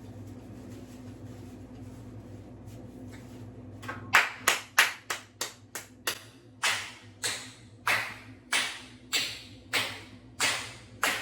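Hands clapping: about fifteen sharp claps, quick at first and then about one every half second, over a steady low hum.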